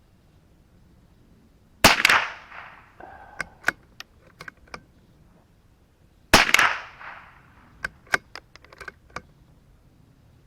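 Two .22LR rifle shots from a CZ 457 Pro Varmint bolt-action, about four and a half seconds apart, each with a short echo trailing off. After each shot comes a run of small metallic clicks as the bolt is worked to eject the case and chamber the next round.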